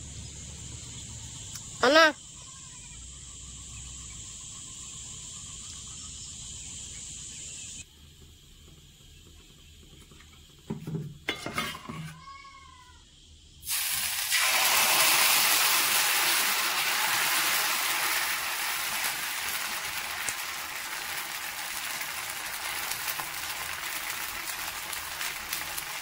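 Batter for pitha (rice pancake) sizzling on a hot iron griddle: a loud hiss that starts suddenly about halfway through as the batter is poured on, then slowly dies down. Earlier there is a short loud shouted call, rising in pitch, and a few brief voices.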